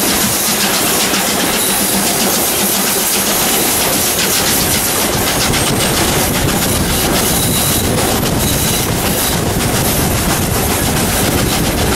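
Steam-hauled train of locomotive 621 running on the climb, with steady loud rumble and wheels clattering over the rail joints, and a hiss of steam.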